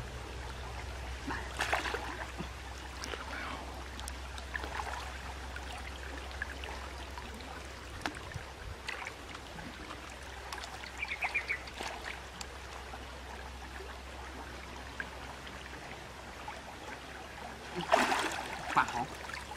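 River water sloshing and trickling around a man wading chest-deep, with small scattered splashes as he works a fishing net below the surface and a louder splash near the end.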